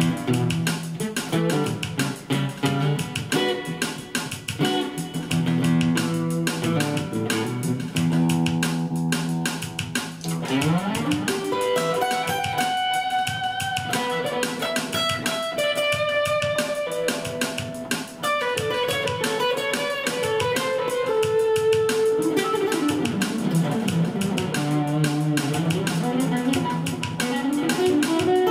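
Solo guitar playing a funk jam with long held single notes. A low riff in the first third slides up into higher melodic lines, then slides back down to low notes near the end.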